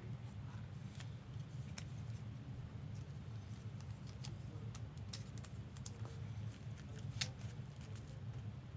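Trading cards being handled and flipped through, giving scattered light clicks and ticks of card edges at irregular intervals over a steady low hum.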